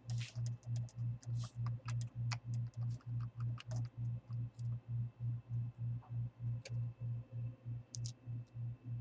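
A low hum pulsing about four times a second, with scattered small clicks and taps of a small screwdriver turning screws in a laptop screen's metal frame. The clicks are busiest in the first few seconds.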